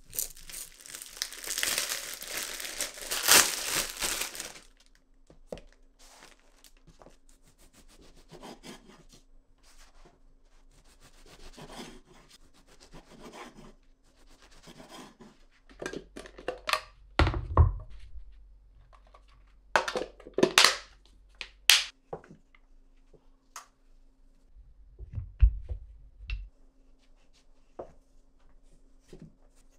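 Crinkling and tearing of packaging for the first few seconds, then scattered knocks, clicks and thunks of things being handled and set down, with a faint steady hum underneath.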